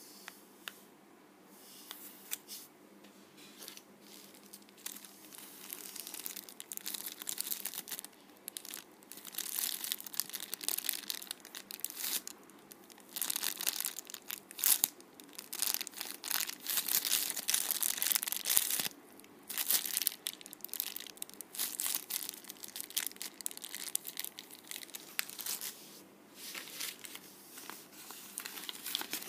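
Clear plastic packaging bags around squishy toys crinkling and rustling as they are handled, in irregular bursts that start faint and grow louder after a few seconds. Near the end a paper bag crinkles as well.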